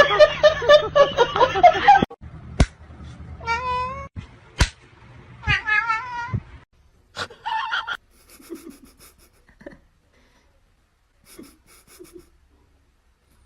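A domestic cat meowing and yowling: a loud stretch of calls in the first two seconds, then several shorter meows with a wavering pitch, each broken off by a sharp click, before it goes faint in the second half.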